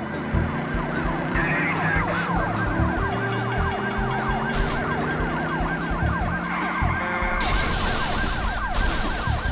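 Police-car siren in a fast yelp, its pitch sweeping up and down over and over, over a music soundtrack with steady low tones. A burst of hissing noise joins in for about a second and a half near the end.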